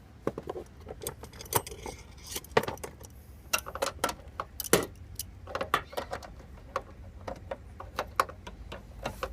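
Irregular metallic clinks and clicks of hand tools and the new steel lower door hinge being handled and bolted into place.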